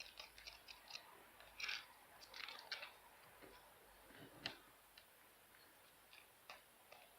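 Faint, irregular scraping and clicking of a utensil stirring a slime mixture in a small bowl.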